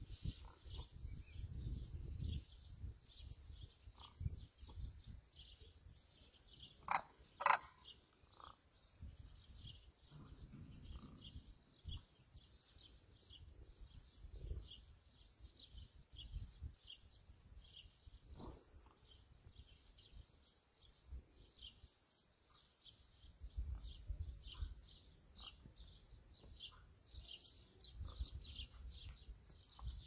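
Birds calling: rapid, high, short chirps go on all the way through, with one louder call about seven seconds in and a few fainter calls later. Low rumbling noise on the microphone comes and goes underneath.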